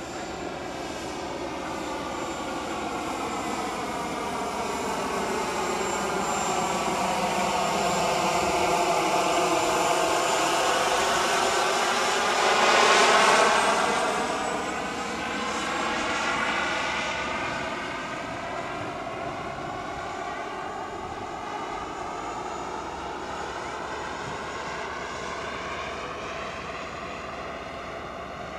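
Turbine engine of a radio-controlled scale L-39 Albatros jet making a low pass. Its high whine and rushing roar swell to their loudest about 13 seconds in. The whine's pitch drops as the jet passes, and the sound then fades to a steady distant roar.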